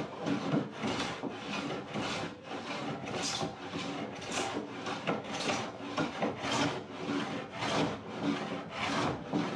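Hand sanding or rasping of a wooden door, in steady back-and-forth scratchy strokes a little under two a second.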